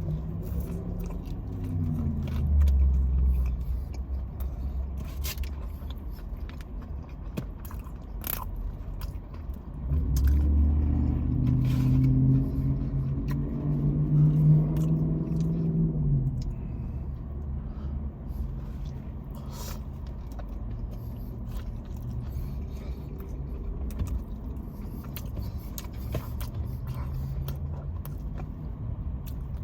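Biting and chewing on a fried chicken slider, with scattered small clicks and scrapes. Under it a low vehicle engine rumble swells twice, about two seconds in and again from about ten to sixteen seconds in.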